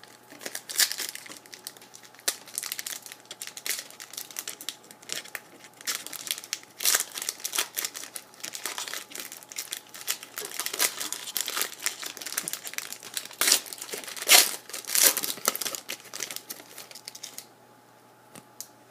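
Crinkling and rustling of trading-card packaging as cards are handled and unpacked: many quick, irregular crackles that stop shortly before the end.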